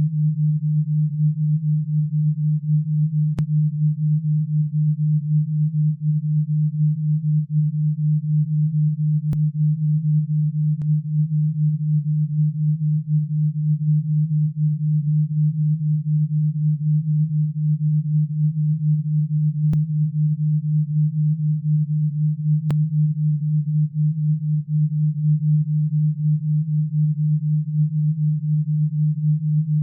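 Steady low-pitched sine tone that pulses rapidly and evenly: an alpha-wave brainwave-entrainment tone.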